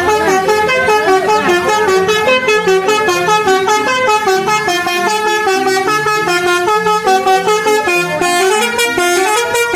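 Indonesian 'telolet' bus horn playing its multi-tone jingle: several notes sound together and step rapidly up and down in a tune, with no break.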